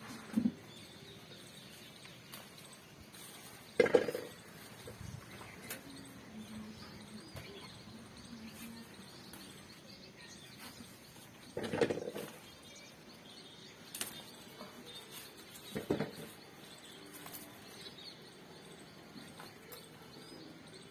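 Quiet outdoor garden sound with faint bird chirps, broken four times by short thumps with rustling, about 4, 12 and 16 seconds in and once at the very start.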